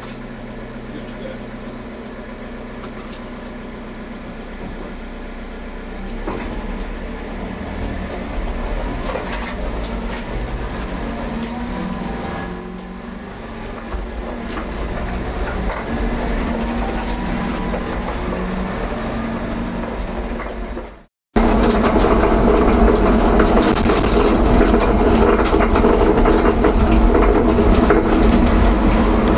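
A vehicle driving, with engine and road noise and frequent knocks, heard from inside its load area. It grows louder about six seconds in, cuts out for a moment about two-thirds of the way through, then returns louder.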